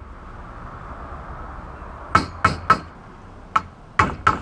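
Hammer striking a flathead screwdriver to drive the old gooseneck collar out of a dinghy boom end: three quick ringing blows about two seconds in, then three more near the end.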